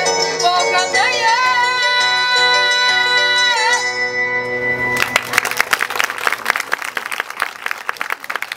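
A woman sings a traditional Ukrainian song to her own bandura accompaniment, ending on a long held note with vibrato that stops about four seconds in. After a short gap, the audience applauds.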